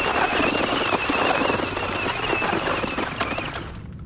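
RC dune buggy running on loose dirt: a steady, high motor whine over the gritty rattle of its tyres spinning and scattering dirt and gravel. The whine stops about three and a half seconds in and the sound fades as the buggy moves away.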